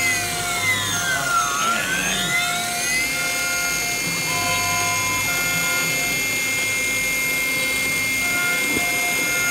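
Small CNC milling spindle whining steadily as its end mill cuts a bone guitar-nut blank, with short tones from the axis drives coming and going. A whine dips in pitch and climbs back again during the first three seconds.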